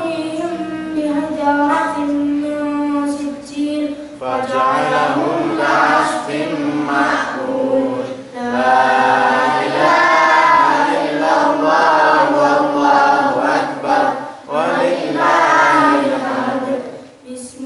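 A boy's voice reciting the Qur'an in a melodic chant, in long held phrases broken by brief pauses.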